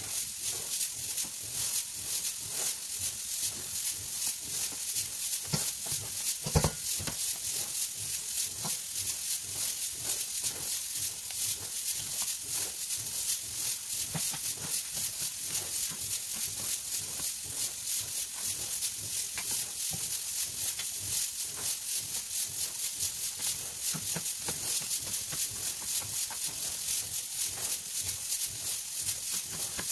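Pressure cooker of peas letting off steam in quick, steady, rhythmic hissing puffs. Now and then a knife knocks on a plastic cutting board.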